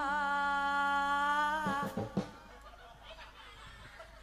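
A long held sung note with vibrato from a Javanese bawa, the unaccompanied vocal introduction in slendro sanga. It breaks off about two seconds in with a few knocks, then quiet background.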